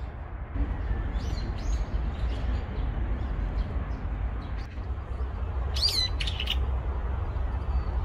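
Birds calling in the trees: a few short high chirps in the first two seconds, then one louder, sweeping call about six seconds in. A steady low rumble runs underneath.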